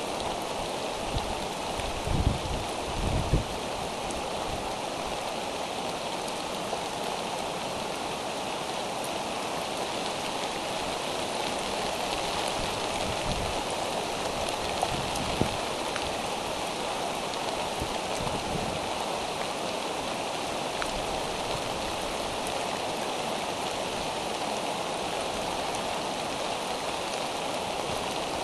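Steady rain falling around a bald eagle nest camera's microphone, with a few low thuds about two to three seconds in.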